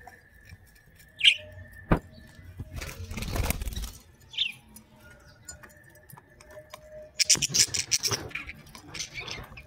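Young budgerigars in a cage giving a few short, sharp chirps, then breaking into busy chattering about seven seconds in. A loud rustle comes about three seconds in.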